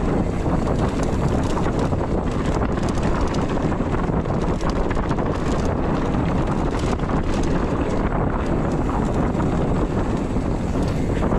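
Mountain bike rolling fast down a dirt trail: wind buffeting the GoPro's microphone over the rumble of knobby tyres on dirt and leaves, with frequent short clicks and rattles from the bike.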